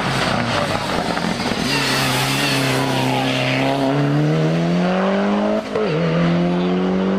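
Race car engine accelerating hard uphill. Its pitch climbs steadily, drops sharply about five and a half seconds in as it shifts up a gear, then climbs again.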